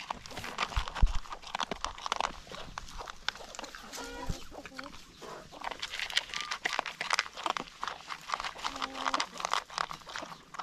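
Dogs eating, with dense quick crunching and chewing clicks throughout. Two short pitched animal calls come in, one about four seconds in and one near the nine-second mark.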